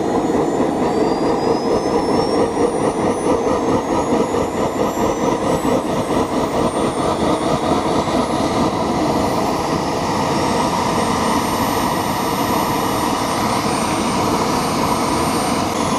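Small homemade turbojet running, a loud steady jet roar with a high whine that slowly climbs in pitch over the first ten seconds or so.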